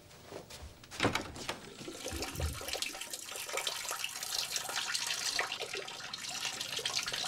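A few knocks about a second in, then a steady stream of urine splashing into a toilet bowl from someone standing at the toilet.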